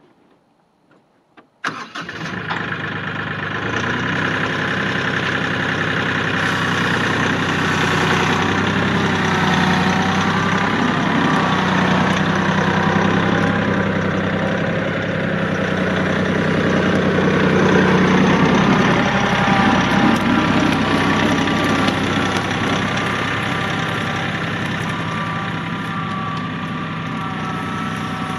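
Kioti 4010 tractor's diesel engine starting up suddenly about two seconds in, then running steadily, a little louder around the middle.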